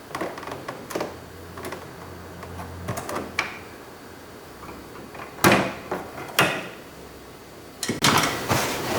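Small screwdriver prying the plastic trim bezel out from around the interior door handle of a 2006 Nissan Sentra door panel: a series of separate plastic clicks and knocks, the loudest about five and a half seconds in, with a quick cluster of clatter near the end.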